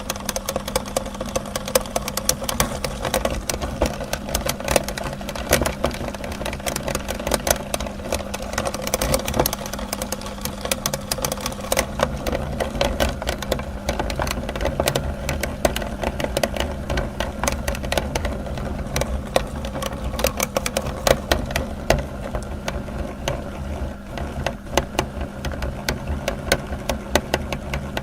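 Electric meat grinder running with a steady motor hum, grinding soap with dense irregular crackling and rattling.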